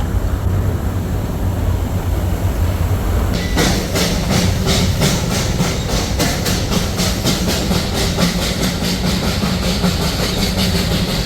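Darjeeling Himalayan Railway narrow-gauge toy train running, heard from on board. A steady low rumble is joined about three and a half seconds in by a quick, regular beat of about four to five strokes a second.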